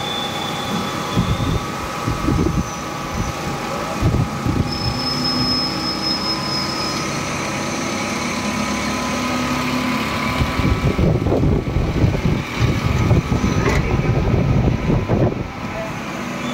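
2008 Batliboi Sprint 20TC CNC turning center cutting a part: a steady machine hum of several tones, with irregular crackling and splashing from the coolant spray and chips. The crackling grows busier and louder about two-thirds of the way through.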